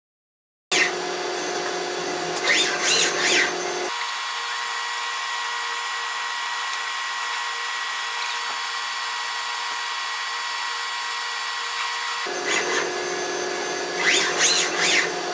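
After a brief silence, the servo motors of a Stäubli industrial robot arm whine, the pitch rising and falling as the arm swings, over a steady machine hum. In the middle the sound changes to a steadier machine hum with a high hiss, then the arm's rising and falling whine returns near the end.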